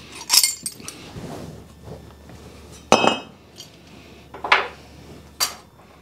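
Four sharp metallic clanks of a hammer and the removed exhaust up pipe being handled and set down against metal. One clank, midway through, rings briefly.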